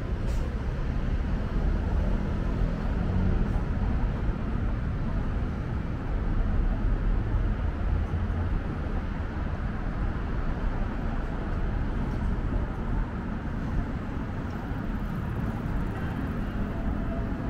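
City street ambience: a steady rumble of road traffic from passing cars.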